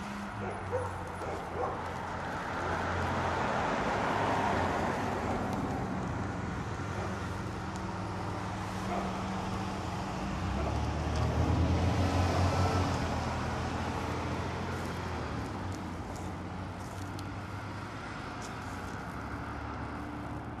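Street traffic: vehicles driving past, one swelling up about four seconds in and a louder one around twelve seconds in, with a low engine hum under the tyre noise.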